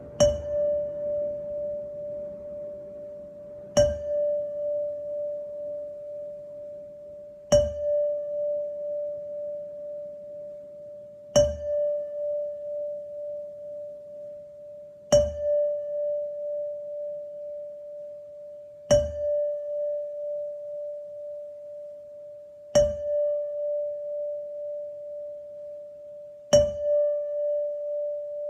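A singing bowl struck with a mallet about every four seconds, eight times, sounding the same single note each time. Each strike rings on with a wavering pulse and is still sounding when the next one lands.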